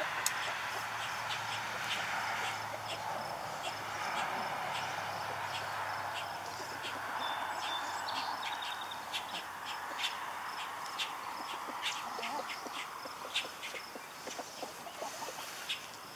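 Chickens foraging in loose garden soil: scattered short clicks of scratching and pecking, with small birds chirping now and then, over a steady background noise.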